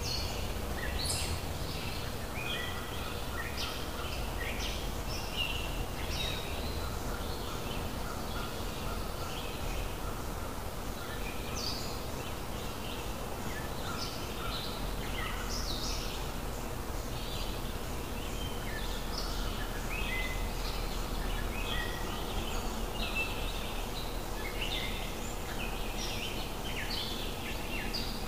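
Birds chirping and calling, with many short overlapping calls throughout, over a steady low background noise.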